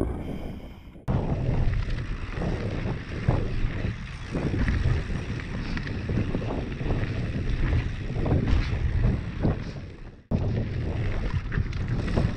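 Wind buffeting a GoPro's microphone, with tyre noise on dirt and rattling knocks from a Specialized S-Works Demo 8 downhill mountain bike ridden fast over rough ground. The sound breaks off sharply twice, about a second in and near ten seconds.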